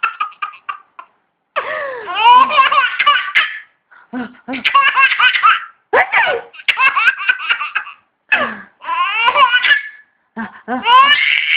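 A baby laughing hard in repeated fits of high-pitched belly laughs. It starts with a run of quick short giggles, then comes in bursts a second or two long with short breaks between.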